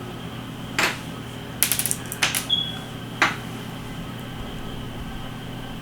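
Light clicks and a short rattle of small hard parts: small drone propeller blades and their tiny screws being handled and set down on a hard surface. One pair of clicks leaves a brief metallic ring.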